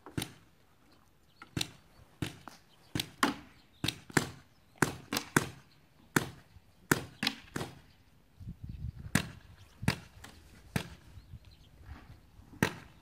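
Paintball markers firing during play: irregular sharp pops, some single and some in quick pairs, with the loudest shots near the very start and near the end.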